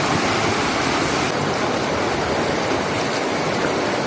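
Small river rushing steadily, its flow swollen after a night of rain.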